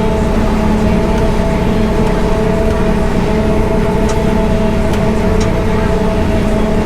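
Heavy farm machinery running steadily under load: a constant engine drone with a steady whine and hum over a low rumble, a few faint clicks near the middle.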